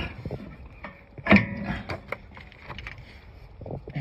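Metal parts of a rear disc brake being handled: light clicks and clatter, with one loud, ringing metallic clink about a second and a half in.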